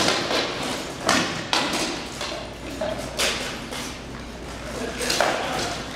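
Rattan swords striking shields and armour in SCA heavy armoured combat: about five sharp knocks spread over a few seconds, echoing around a large hall.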